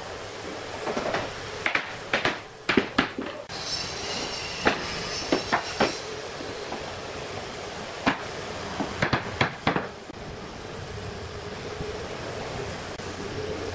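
Bamboo tongue-and-groove floorboards knocking and clacking as they are set down and fitted together by hand: short sharp knocks in several clusters, over a steady background hum.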